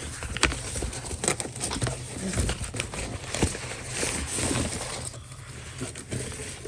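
Packaging rustling and crinkling as a parcel is unpacked by hand, with scattered irregular clicks and knocks.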